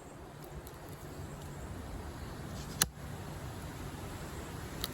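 A single sharp chop of a Condor Heavy Duty Kukri's steel blade into a thick piece of wood, a little under three seconds in, over a steady low background hiss.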